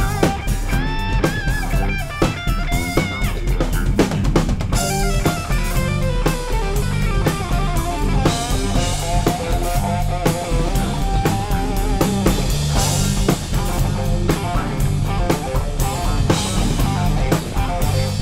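Instrumental rock jam from a live band: two guitars playing over bass guitar and a drum kit keeping a steady beat. The cymbals grow brighter about five seconds in.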